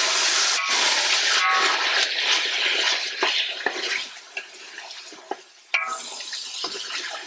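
Boneless chicken cubes sizzling in hot oil in a large pot while being stirred with a spatula, with a few scrapes and knocks of the spatula against the pot. The sizzle is loud for the first few seconds and then dies down.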